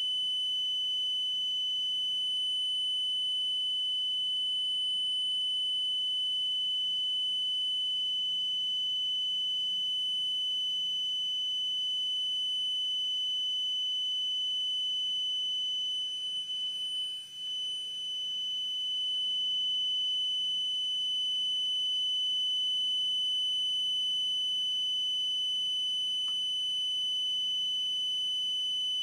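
Fire alarm sounder giving a continuous, steady high-pitched tone, the alarm sounding during a smoke detector test. The tone falters and dips briefly about sixteen seconds in, then carries on.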